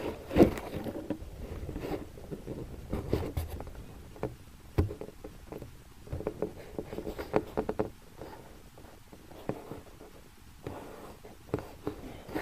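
Irregular knocks, rubbing and scraping picked up by the camera mounted on the RC glider as the model is handled and carried, with no motor running.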